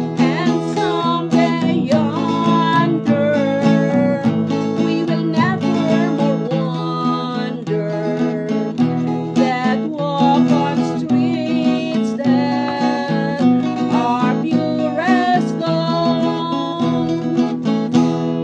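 Music led by acoustic guitar, with plucked and strummed notes.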